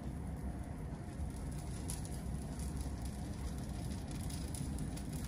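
Faint, steady sizzle of thick pancake batter cooking in a hot non-stick frying pan, over a low steady hum.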